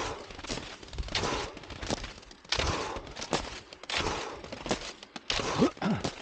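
Cross-country skis sliding and scraping on packed snow, with ski poles planted in a steady rhythm, a swish about every second. Near the end there is a short sound that rises and falls in pitch.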